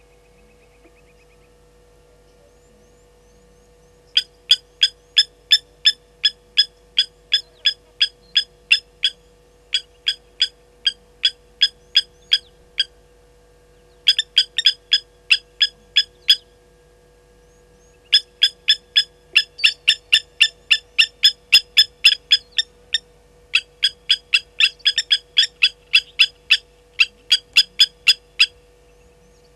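Blacksmith lapwings giving their metallic 'tink-tink' alarm calls, sharp clinking notes at about two a second, in runs that start about four seconds in with short breaks between them. The birds are alarmed by a slender mongoose.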